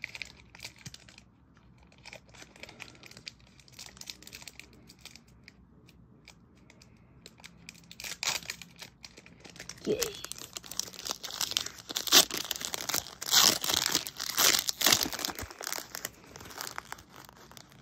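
Foil wrapper of a Pokémon trading-card booster pack crinkling and tearing as it is opened by hand. The crackling is sparse at first and grows denser and louder from about eight seconds in.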